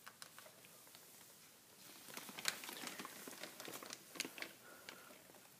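A degu rustling and pulling at dry alfalfa hay: faint, quick dry crackles, thickest in the middle.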